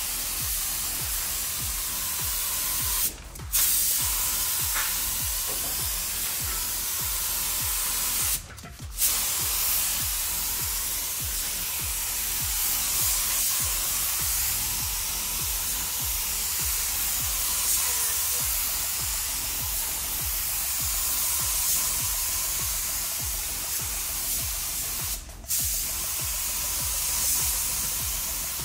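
Air-driven paint spray gun spraying a final coat on a car fender at slightly raised air pressure: a steady loud hiss that cuts out briefly three times as the spraying pauses.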